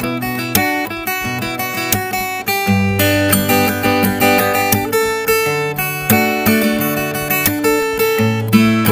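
Background music: plucked and strummed acoustic guitar, a run of picked notes about two a second.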